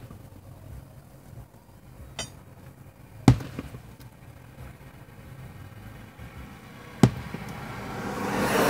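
Aerial firework shells bursting: a small crack about two seconds in, then two loud bangs about four seconds apart. Near the end, a rushing noise swells up, the sound of a car passing close by.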